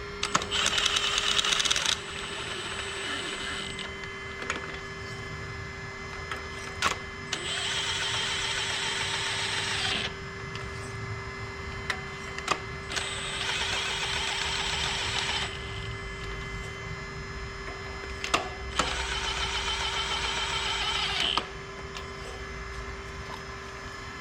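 A ratchet with a spark plug socket running four spark plugs down into a four-cylinder head, one after another. There are four runs of fast, even ratcheting of about two to three seconds each, separated by short metal clicks as the socket is moved from plug to plug, over a steady low hum.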